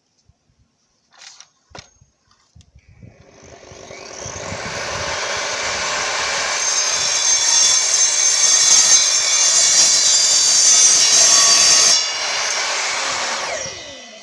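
Evolution R255SMS multi-material miter saw cutting through a steel tube: a loud, high-pitched grinding screech that builds over a couple of seconds, drops sharply about twelve seconds in as the blade comes through, then the motor winds down with falling pitch.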